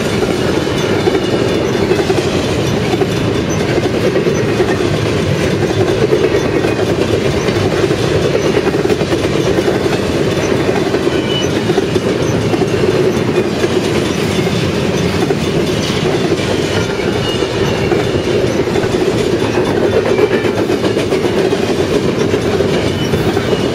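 Train of empty intermodal flatcars ('bare table' cars) rolling past at speed, steel wheels clattering rhythmically over the rail joints with a loud, steady rumble and faint wheel squeal.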